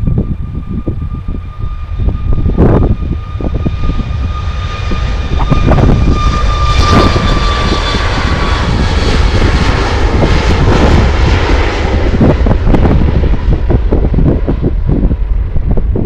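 Jet airliner's engines: a steady high whine over a rush of jet noise that swells to a peak about halfway through, then fades as the aircraft moves away. Strong wind buffets the microphone with low rumbling thumps.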